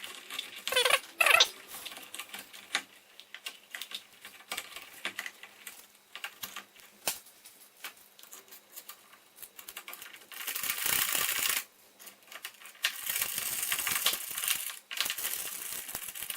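Handling noise as electrical wires are pushed into a wall box and a light switch is fitted back in place: scattered clicks and knocks, two brief squeaks about a second in, and two stretches of scraping later on.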